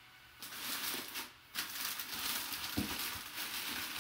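Brown kraft packing paper rustling and crinkling as hands dig through a stuffed cardboard box, starting about half a second in, with a brief pause and a thump a little before the end.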